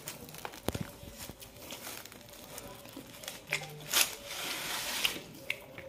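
Crinkling and rustling of a cardboard pizza box and the food in it as a slice is pulled loose by hand, with a few small clicks and knocks. The loudest knock comes about four seconds in, followed by a second of rustling.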